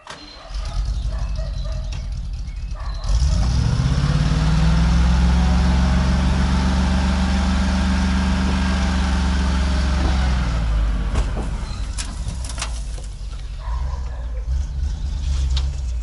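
Dump truck engine running, revved up about three seconds in and held at high revs for about seven seconds while the hydraulic hoist raises the tipper body, then dropping back. A few knocks follow near the end as the load of soil slides out.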